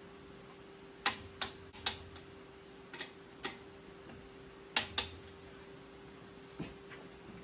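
Sharp, irregular metallic clicks, some in quick pairs, typical of a click-type torque wrench releasing as wheel lug nuts reach torque, over a faint steady hum.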